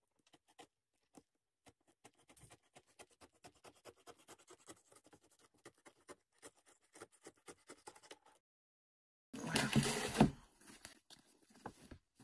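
Snap-off utility knife blade scraping and cutting through the paper and glued spine of a book, a stream of faint short scratchy clicks. About nine seconds in comes a brief, much louder burst of handling noise.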